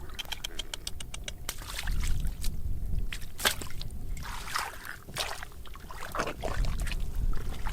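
Water splashing and sloshing in irregular strokes over a low rumble of wind on the microphone, with a fast run of about a dozen clicks in the first second and a half.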